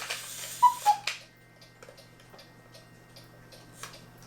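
Black Forest cuckoo clock calling one cuckoo: a falling two-note call over a rush of bellows air about half a second in, then the movement ticking. It cuckoos cleanly, without the hang-up or odd noise it had before the lift wire was shortened.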